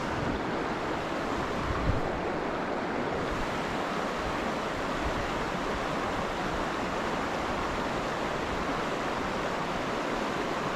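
Mountain trout stream rushing, a steady wash of moving water.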